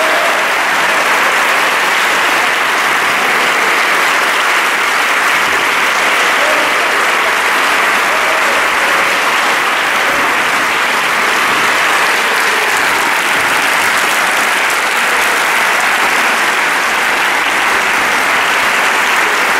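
Audience applauding: steady, dense clapping that keeps an even level.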